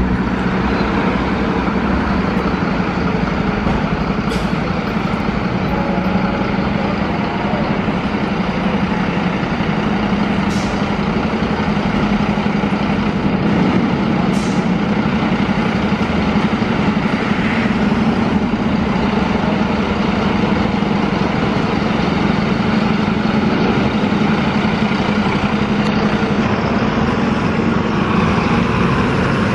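Diesel engines of fire engines running as the trucks pull out of the station, with three short hisses of air brakes being released.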